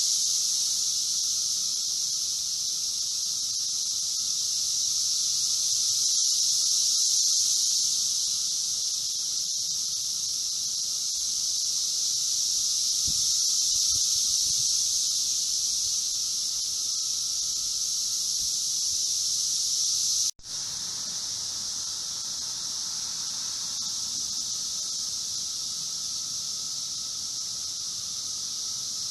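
Chorus of Brood X 17-year periodical cicadas: a loud, steady, high-pitched droning racket that swells and eases slowly, with a fainter lower hum beneath it. It breaks off for an instant about two-thirds of the way through and resumes slightly quieter.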